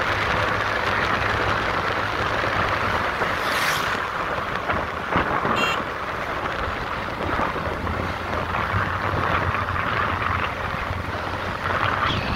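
Wind rushing over the microphone of a moving motorcycle, with the engine's low steady hum underneath; the hum drops away for a few seconds midway and then returns.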